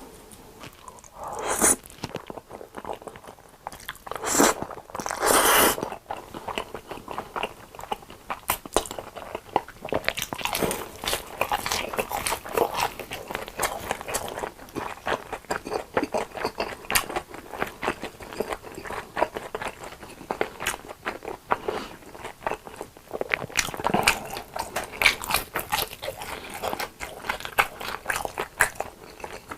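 Close-miked biting and chewing of crunchy fried long cheese sticks. A few loud separate bites come in the first six seconds, then dense, steady crackly crunching.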